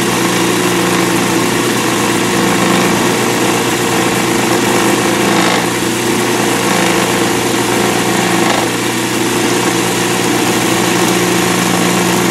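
Lathe running steadily, spinning an acrylic resin pen blank while a skew chisel cuts it: a constant motor hum under the hiss of the cut.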